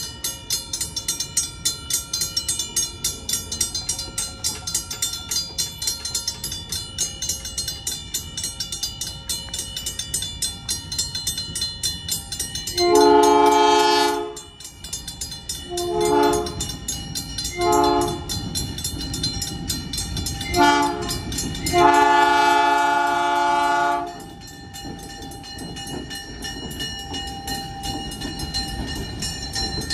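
Diesel locomotive air horn sounding over the regular clacking of a passing train's wheels. The horn gives a long blast about halfway through, then three short ones, then a final long blast of about two seconds, each a chord of several notes.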